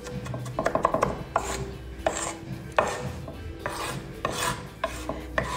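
Food being worked by hand on a kitchen counter: a run of irregular scraping strokes, roughly one every half second to second.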